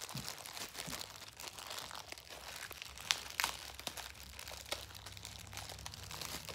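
Clear plastic bag and tissue paper crinkling and rustling as a small jewelry piece is unwrapped, with a few sharper crackles.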